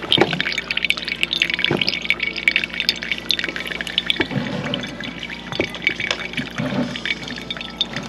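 Coffee dripping from a mesh pour-over filter into a mug of brewed coffee: a quick, uneven patter of drops, densest in the first few seconds and thinning out after.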